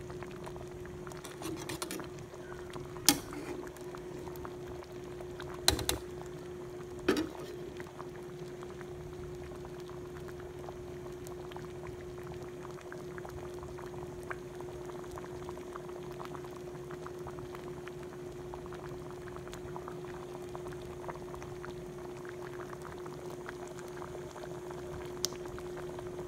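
Pot of mung bean soup bubbling at a steady boil, over a constant low hum. A few sharp knocks come in the first seven seconds.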